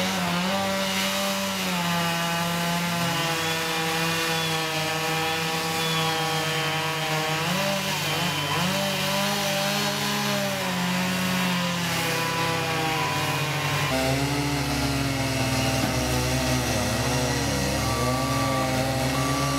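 STIHL two-stroke chainsaw running at high revs, its pitch dipping and recovering as it cuts into a large White Fir log round. About 14 seconds in, a deeper diesel engine rumble from a Cat 299C compact track loader joins it, and short beeps repeat near the end.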